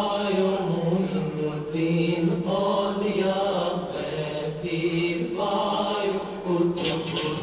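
Sufi devotional chanting by male voices: a short sung phrase repeated again and again in long held notes.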